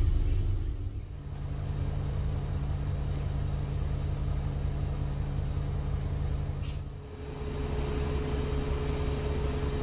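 Volvo B8RLE city bus's rear-mounted six-cylinder diesel engine running, heard inside the passenger cabin as a steady low drone. The sound dips briefly twice, and after the second dip a steady higher hum joins it.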